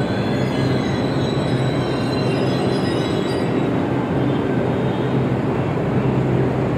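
Delhi Metro electric train running in along the platform: a steady rumble with a low hum and a faint high whine.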